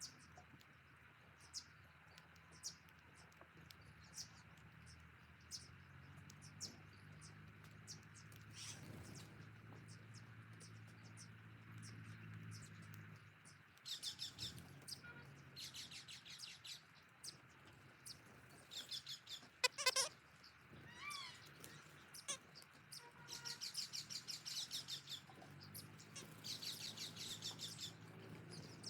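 Small birds chirping in rapid trains of high twittering, several bursts a second or two long in the second half, with scattered sharp clicks and a faint low hum underneath.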